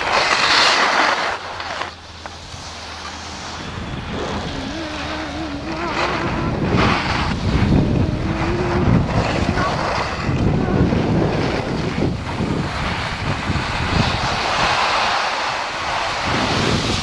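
Wind rushing and buffeting over an action camera's microphone while skiing downhill, with the hiss and scrape of skis on snow.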